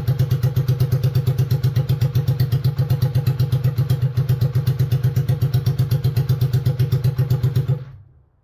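Suzuki DR125's single-cylinder four-stroke engine idling steadily with a slow, even beat, then switched off about eight seconds in, dying away quickly.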